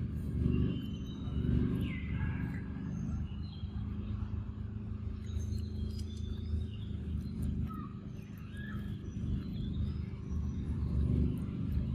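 Forest ambience: scattered short bird chirps and whistles over a steady low rumble.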